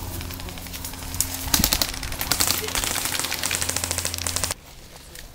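Rapid, evenly spaced clicking from an airsoft gun firing full auto for about three seconds, over a steady low hum. The sound cuts off abruptly near the end.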